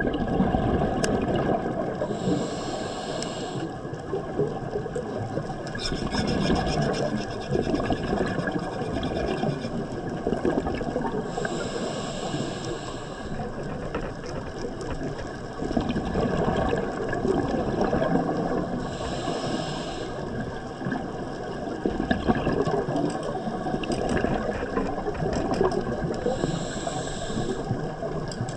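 Scuba diver breathing through a regulator underwater: a steady low rumble, with a hissing burst of exhaled bubbles about every seven to eight seconds, four times.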